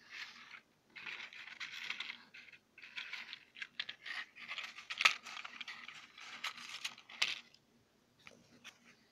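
Packaging being handled and opened: rustling and crinkling of a cardboard box and a clear plastic tray, in several bursts, with a sharp click about five seconds in.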